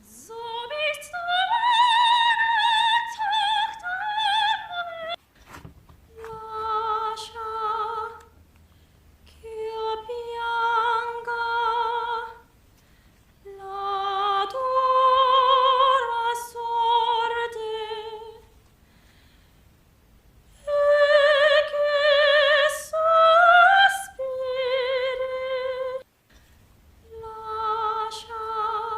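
Female soprano singing opera with strong vibrato, in six short sung phrases of one to five seconds each, separated by brief pauses.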